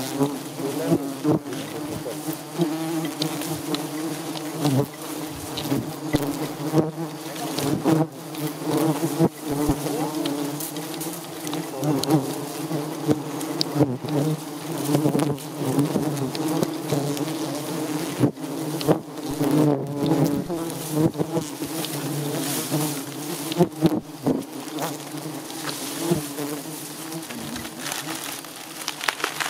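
A large swarm of giant honeybees buzzing in a dense, unbroken drone close around the microphone, with frequent sharp ticks. The bees are agitated and defensive, stirred up by the harvest of their nest and stinging the harvesters.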